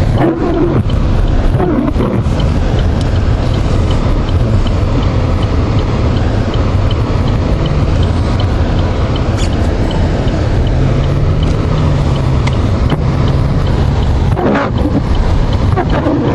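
Car driving on a snow-covered road, heard from inside the cabin: steady engine and tyre rumble, with a faint regular tick about twice a second.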